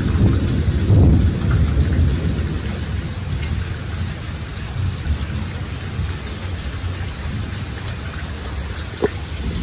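Thunder rumbling over steady rain: the rumble is strongest about a second in, then dies back to a lower rumble under the rain's hiss. A single sharp tap sounds near the end.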